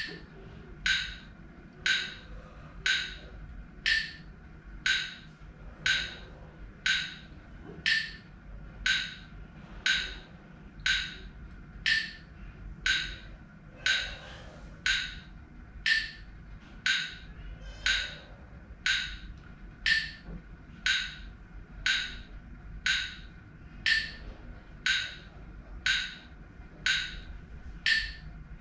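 Phone metronome app ticking with a sharp wood-block click about once a second, setting the pace of deep Wim Hof breaths. Faint breathing shows under the ticks around the middle.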